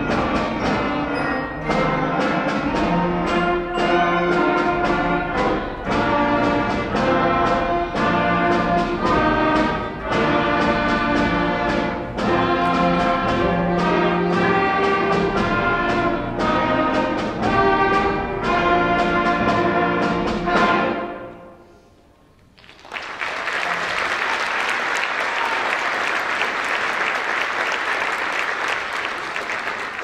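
Middle school concert band of clarinets, saxophones, brass and timpani playing a piece with a steady beat, which ends on a final chord about two-thirds of the way through. After a brief pause the audience applauds.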